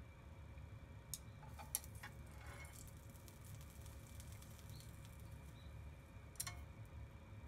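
A few light clicks and taps of wooden cooking chopsticks against an empty non-stick frying pan as they are laid down in it, mostly in the first two seconds, with one more click near the end, over a steady low hum.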